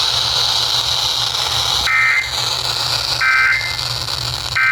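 Emergency Alert System end-of-message (EOM) SAME data bursts: three short, two-tone digital chirps about a second apart, the first about two seconds in, over steady radio static. They signal the end of the alert message.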